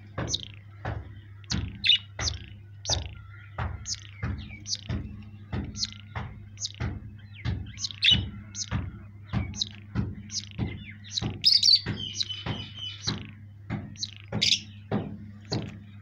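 Caged pet parrots chirping in short, high, repeated calls. Under them runs a steady beat of thuds about twice a second over a low hum.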